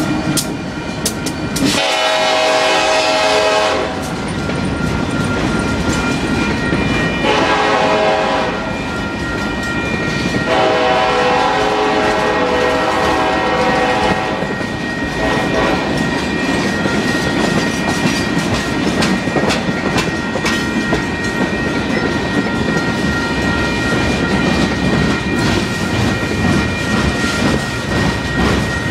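Union Pacific freight train passing close by, its wheels rumbling and clattering over the rail joints. The locomotive's air horn sounds three long blasts in the first half, the last the longest. A thin steady high squeal runs through the second half.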